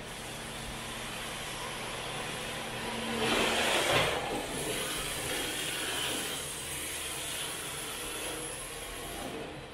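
Electric MST rear-wheel-drive RC drift car running on a concrete floor: motor whine and tyres scrubbing as it slides. It gets loudest as it passes close, about three to four seconds in.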